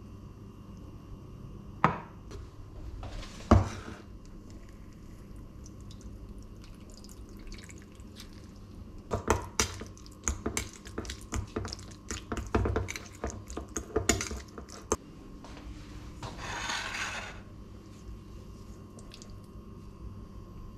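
A metal utensil clinking and scraping against a small stainless steel bowl as avocado sauce is stirred and scooped: a quick run of irregular clinks lasting about six seconds. Near the start there are two sharp knocks of tableware set down on the countertop, and near the end a brief swish.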